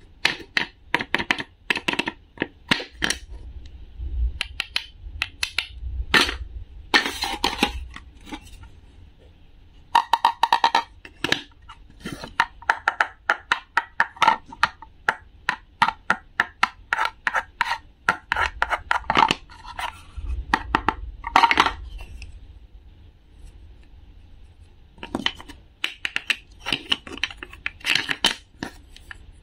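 Wooden toy knife tapping and chopping on a wooden cutting board and on toy food pieces: runs of sharp wooden clicks and knocks, some rapid, separated by short pauses.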